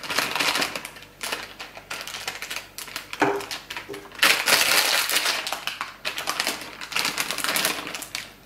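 Plastic Haribo Goldbears bags crinkling as they are shaken and emptied, with many small ticks of gummy bears dropping onto a tabletop. The rustling comes in bursts, the loudest a little over four seconds in.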